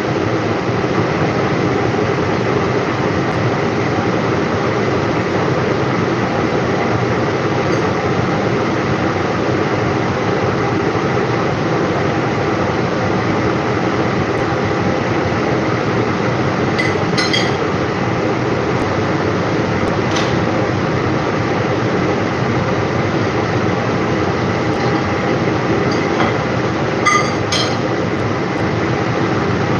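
Steady rushing kitchen noise at the stove, with a few light clinks of metal or glass about halfway through and again near the end.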